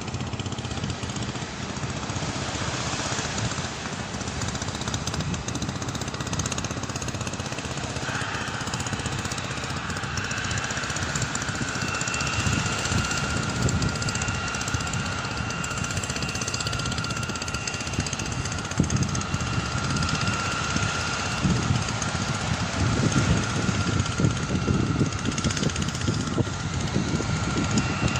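Jet airliner engines running with a steady rumble. A high, steady whine comes in about eight seconds in, and a second, higher whine joins a few seconds later. Gusts of wind buffet the microphone in the second half.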